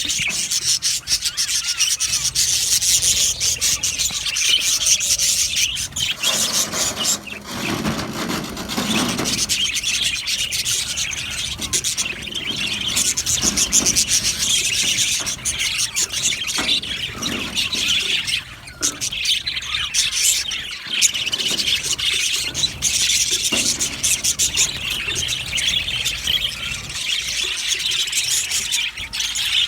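A flock of budgerigars in an aviary chattering and chirping continuously, many birds at once. A lower, rougher noise joins in for a couple of seconds about seven seconds in.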